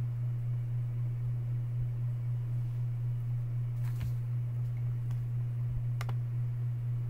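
Steady low electrical hum on the call audio, with two sharp clicks, one about four seconds in and another about two seconds later.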